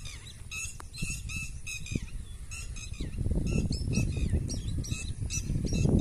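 Birds calling over rice paddies: short, sharp calls repeated about two or three times a second. A low rumbling noise joins about halfway through.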